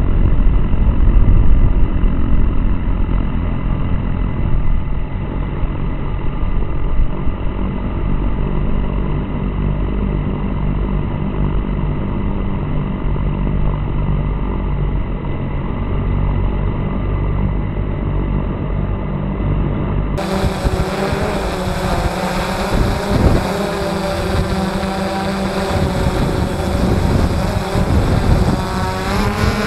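Quadcopter's electric motors and propellers whining steadily, picked up by the camera on board, over a low rumble of wind on the microphone. About two-thirds of the way through the sound changes abruptly and turns clearer, with the motor pitch wavering up and down, and a rising whine near the end.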